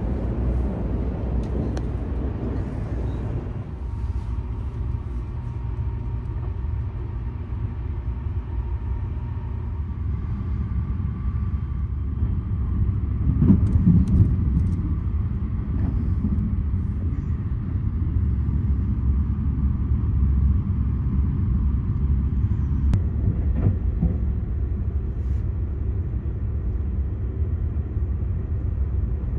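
Inside the cabin of the Sunrise Express sleeper train in motion: a steady low rumble, swelling briefly about halfway through.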